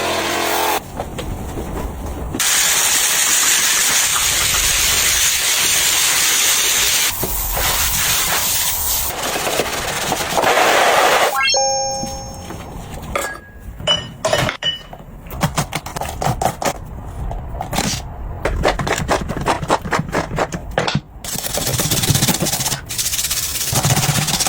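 Household cleaning sounds: a steady rushing hiss for several seconds, then a busy run of clicks and knocks with a few short ringing clinks as hard objects are handled.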